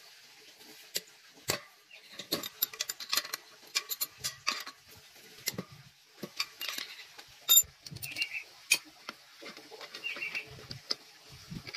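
Irregular light metallic clicks, clinks and taps of hand tools and metal parts being handled, with a few short bird chirps in the background.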